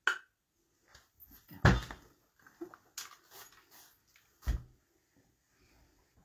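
Clothes iron being handled: a sharp click at the start, then heavy thuds about a second and a half in and again about four and a half seconds in as the iron is lifted and set down on a wool pressing mat, with light knocks and fabric rustling between.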